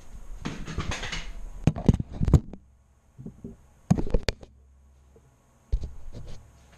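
Handling noise of a camera being picked up and repositioned by hand: rustling, then several sharp knocks in short clusters about two seconds in, about four seconds in and near the end.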